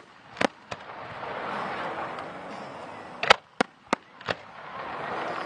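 Fireworks bursting in sharp bangs: two about half a second in, then four in quick succession a little after three seconds, with a hissing noise between them.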